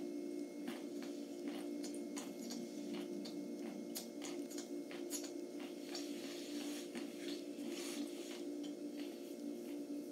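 A person chewing a mouthful of food close to the microphone, with many small crunches and mouth clicks. A steady low hum runs underneath.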